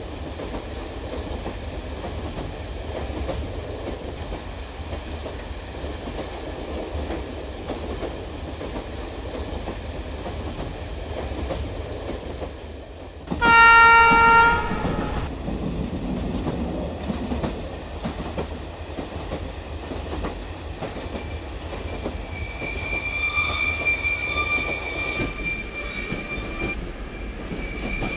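Toy train running along its track with a steady rattling rumble. About halfway through comes a short, loud horn blast, and from near the end a steady high whine runs alongside the running noise.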